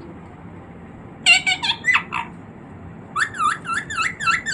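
Pet parrot calling: a short cluster of squawky notes about a second in, then a quick run of repeated chirping notes, several a second, near the end.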